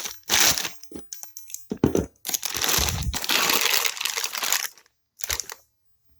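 Packaging being crinkled and pulled around by hand as a turbocharger is unwrapped, in several rustling bursts with a longer one in the middle and a dull low bump about three seconds in.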